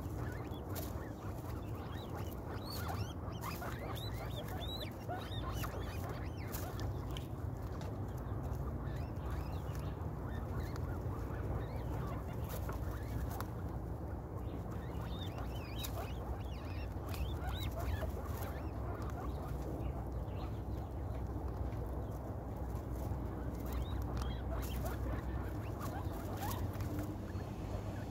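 Young guinea pigs crunching feed pellets and shuffling in hay: many small clicks and scratches, with short high chirping calls mostly in the first few seconds, over a steady low hum.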